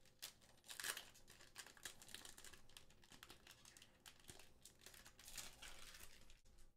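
Quiet crinkling and tearing of a trading-card booster pack's foil wrapper as it is peeled open by hand, loudest about a second in. The sound cuts off suddenly near the end.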